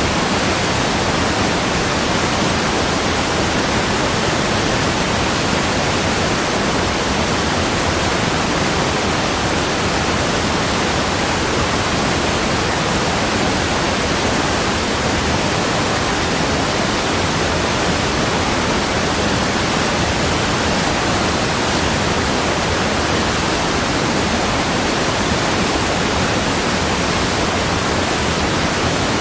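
Waterfall: falling water rushing as a steady, unbroken hiss, even and continuous with no splashes or changes standing out.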